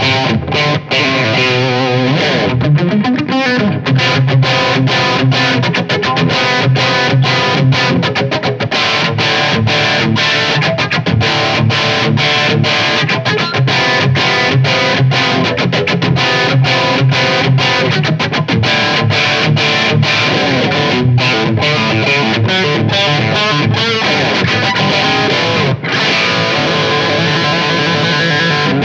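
Electric guitar played through an ALP Redevil overdrive/distortion pedal, switched on: a distorted rhythmic riff of short chords broken by quick stops.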